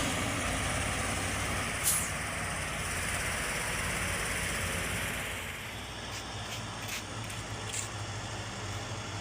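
Heavy diesel engine running steadily, with two short high hisses, one about two seconds in and one near the end, and a few faint clicks.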